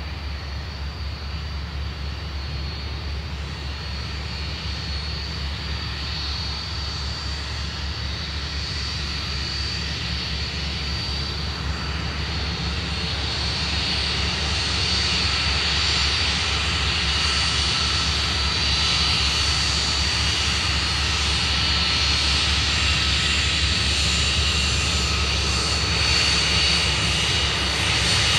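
The four ALF 502 turbofan engines of a British Aerospace BAe 146-200 whine at low taxiing power over a low rumble, with several high steady tones. The sound grows steadily louder as the airliner turns and comes closer.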